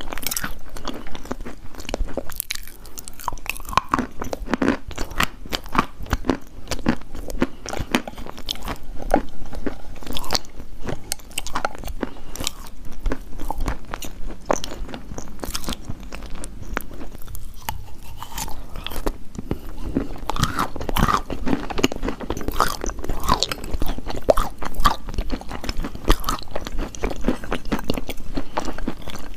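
Close-up crunching and chewing of hard chalk: a dense, irregular run of sharp crackles and bites with no pause.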